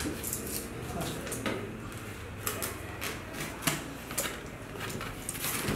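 Utility knife blade scraping and slicing through the packing tape and plastic wrap on a cardboard box, in a run of irregular short scratches and clicks.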